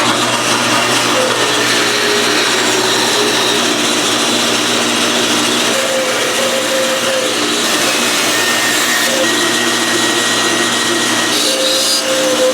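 A stationary woodshop power tool running steadily while working a piece of wood, with faint tones rising and falling as the piece is fed in.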